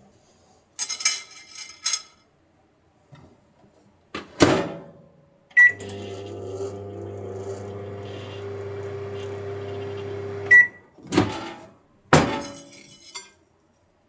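Samsung microwave oven in use. A clatter comes first, then the door shuts with a thunk and a short beep starts the oven. About five seconds of steady hum follow, ending at a second beep when it is stopped. Two knocks come near the end as the door is opened.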